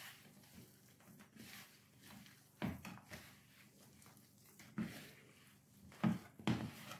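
A hand kneading and squeezing a sticky dough of cooked rice and gram flour in a bowl: faint, irregular squishing with a few short thumps, two of them close together near the end.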